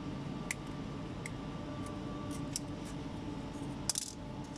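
Small plastic clicks and taps of a gloved hand working the white plastic filter insert inside a truck air dryer housing. A brief rustling scrape comes near the end as the insert is drawn out, over a steady low hum.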